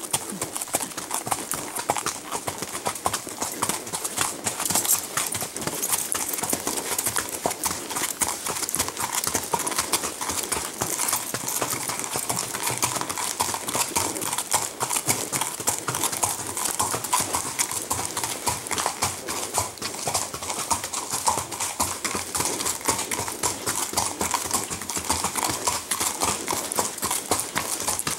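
Horses' hooves clip-clopping steadily on a packed gravel trail.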